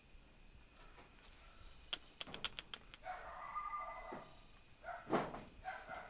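A back-door handle rattled in a quick run of six or seven sharp metallic clicks about two seconds in: someone on the other side trying to open the door to escape. A louder thump follows about five seconds in.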